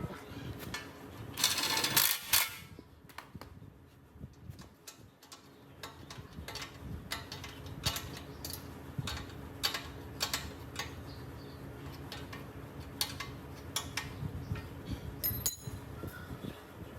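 Workshop handling sounds: a short burst of hissing noise about two seconds in, then a scattered series of light metal clicks and taps as tools and parts are handled.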